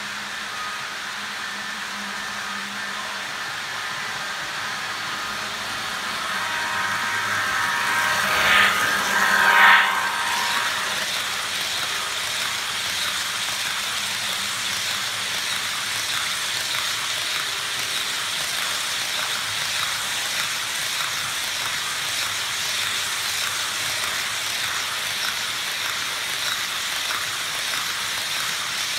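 Sound-decoder diesel engine sound from HO scale Bachmann DD40AX and SD40-2 model locomotives, building as they approach and loudest as they pass, about a third of the way in. Then a steady rolling hiss of the model freight cars' wheels on E-Z Track plastic roadbed, which has been drilled to cut its high-pitched noise.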